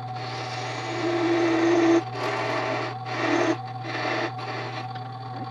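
Wood lathe running with a steady hum while a parting tool cuts into the spinning blank in several stretches with short breaks, with a brief squeal about a second in and again after three seconds.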